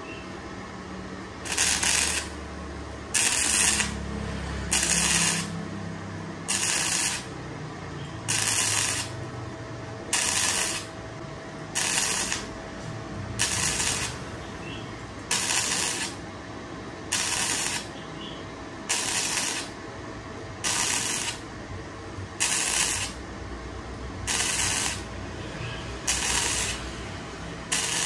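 ZARU MIG-300S gasless (flux-core) MIG welder's arc sizzling in short bursts, about sixteen of them, one every second and a half or so: stitch-welding a butt joint on very thin sheet steel.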